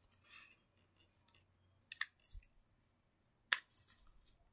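Handling noise from hands moving plush toys and a small media player: soft rustles and a few sharp clicks, two close together about two seconds in and the loudest about three and a half seconds in.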